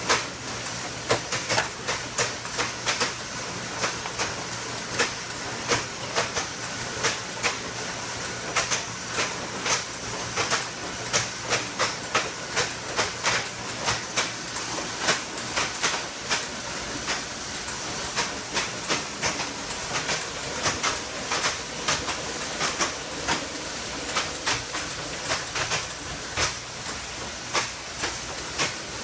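Automated coded-wire fish-tagging machine running: clamps and tag injectors clicking repeatedly and irregularly, about one to three clicks a second, over a steady hiss and a low hum.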